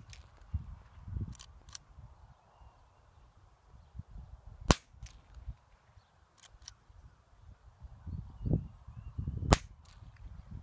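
Two sharp gunshots from a long gun, about five seconds apart, with pairs of fainter clicks in between.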